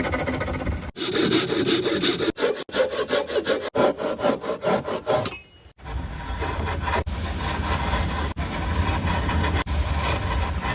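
Wood being sawn, heard in several short clips that stop abruptly one after another.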